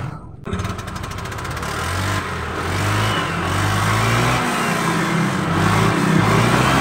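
Honda Vario 125 scooter's single-cylinder engine running and revving, starting about half a second in and growing louder, its CVT pulley bearing freshly replaced.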